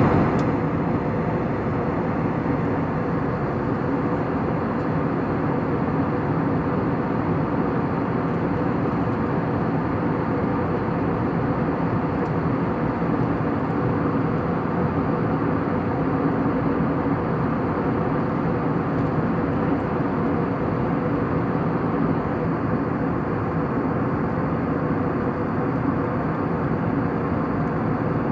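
Airliner cabin noise in flight: a steady engine and airflow drone with a low hum, unchanging throughout.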